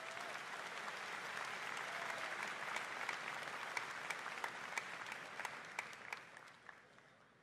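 Large arena audience applauding, the dense clapping of many hands. It holds steady and dies away over the last second or so.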